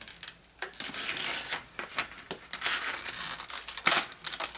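Crinkling and rustling with a string of small clicks and knocks, the loudest click about four seconds in, as RC shock parts are handled on the bench while being readied for filling with 30 weight oil.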